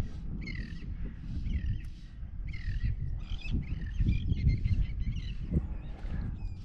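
Birds calling over and over, harsh bending calls about once a second that crowd together around the middle, over a steady low rumble.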